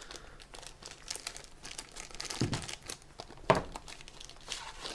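Small plastic baggie crinkling as it is handled and emptied, with a sharp knock about three and a half seconds in.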